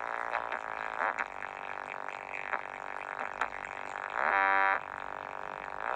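Loud, buzzy amplified music from a parade sound system, with a held note standing out about four seconds in.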